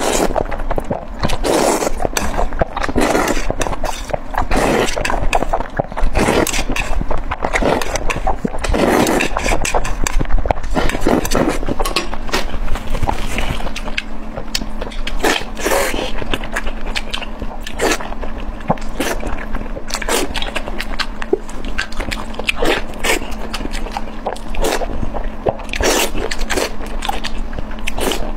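Close-miked eating sounds: slurping noodles, then chewing and biting food, full of irregular wet mouth clicks and smacks. A faint steady hum runs underneath.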